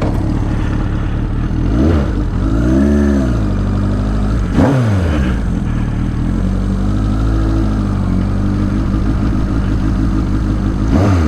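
1983 Suzuki GS1100E's air-cooled inline-four running at idle, revved up and let fall back a few times: about two, five, seven and eleven seconds in.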